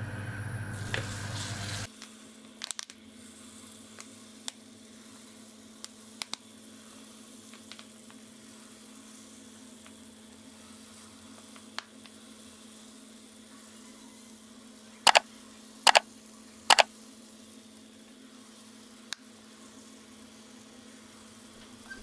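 Batter balls frying in shallow hot oil in a nonstick pan, a steady faint sizzle, with occasional sharp clicks as a knife cuts the batter off at the bottle's plastic spout; three louder clicks come in quick succession past the middle. A low hum stops about two seconds in.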